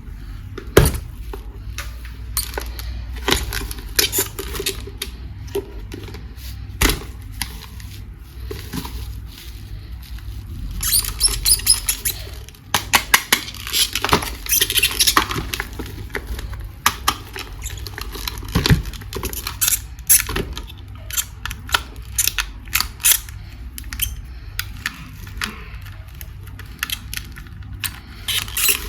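Hands handling plastic toys and packaging at close range: scattered clicks and knocks of hard plastic, with stretches of crinkling about 11 and 14 seconds in.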